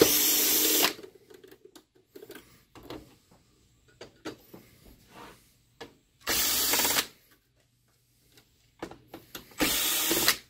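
Electric screwdriver running in three short bursts of under a second each, backing screws out of the projector's main-board bracket, with light clicks and handling noise between.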